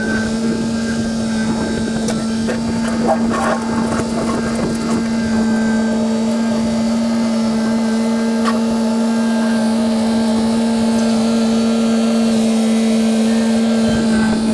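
An engine running steadily at constant speed, one unchanging tone with a few faint knocks early in.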